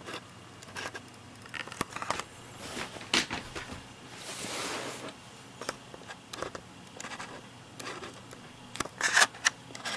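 Hands handling a tablet and its packaging: scattered small clicks and taps, with a soft rustle lasting about a second around four seconds in.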